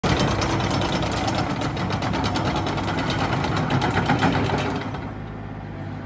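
Yanmar B27 mini excavator's three-cylinder diesel (3TNE82A) running as the machine travels on its steel tracks, with a fast, even clatter over the engine drone. About five seconds in the clatter stops and a quieter, steady engine hum remains.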